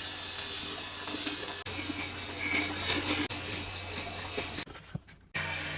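Butterfly knife blade being sharpened: a steady grinding hiss with a low hum under it. It breaks off briefly twice and drops out for about half a second near the end.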